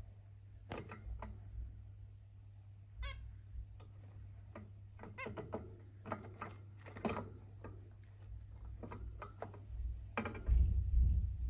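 Zebra finches giving short, nasal calls in quick, irregular bursts over a steady low hum, with a louder low rumble near the end.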